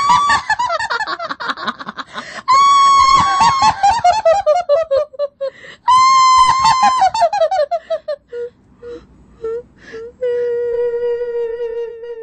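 A witch's cackling laugh, high-pitched and loud, given three times. Each cackle opens on a held shriek and then falls in pitch as a quick run of 'ha-ha-ha'. After a few short notes comes one long, wavering moan held at a lower pitch near the end.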